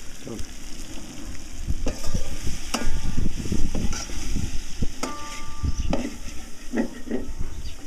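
Metal spatula stirring and scraping okra frying in a steel karahi, with a sizzle underneath. The spatula rings against the pan twice: briefly about three seconds in, and longer about five seconds in.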